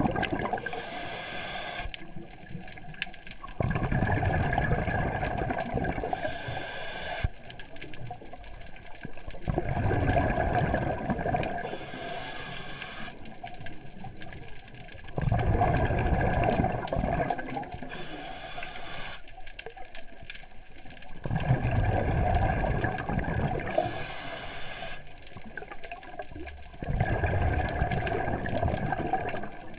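Scuba diver breathing underwater through a regulator: a bubbling rush of exhaled air about every six seconds, each lasting two to three seconds, with a quieter inhalation hiss between.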